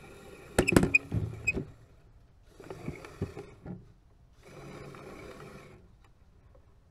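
The crane's LEGO XL winch motor whirs in three short bursts. Sharp knocks come in the first two, the loudest about half a second in.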